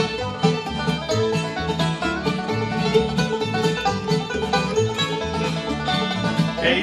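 Bluegrass band playing an instrumental break with no singing: banjo, mandolin, fiddle and acoustic guitar in quick picked notes over an upright bass pulse.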